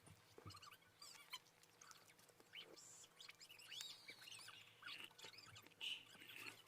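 Very faint eating sounds close to the microphone: soft chewing of cake with scattered small wet clicks and squeaky mouth noises.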